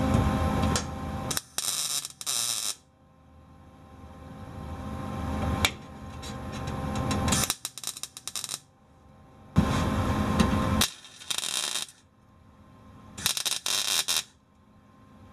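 MIG welder tack-welding a sheet-steel patch panel: about five short crackling arc bursts, each up to about a second long, with quiet pauses between them. A steady low noise fills the first second.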